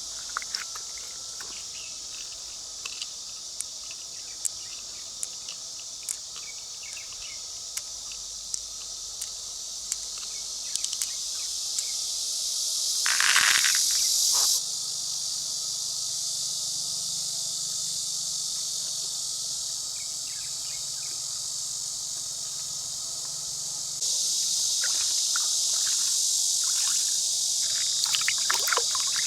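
A steady high-pitched chorus of insects trilling, with scattered small clicks. There is a brief rush of noise about thirteen seconds in. The overall level drops suddenly about fifteen seconds in and rises again about twenty-four seconds in.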